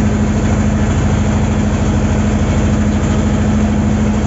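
Boat's engine running steadily at a constant speed, a loud low drone with an even pulse.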